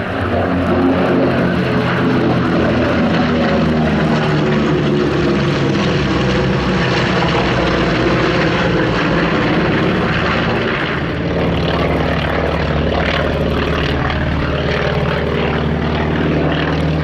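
Radial-engined propeller warbird flying a display pass, its engines running steadily with a loud, throbbing note; about two-thirds of the way through, the engine note drops slightly in pitch and level.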